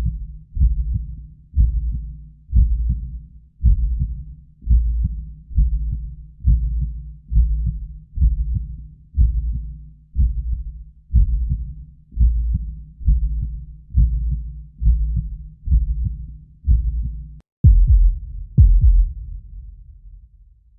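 Heartbeat sound effect: deep, bass-heavy thumps with a creepy echo trailing each beat, about one beat a second. About 17 seconds in it cuts to a sharper, dramatic heartbeat: a double beat, then a longer pause, then another double beat near the end.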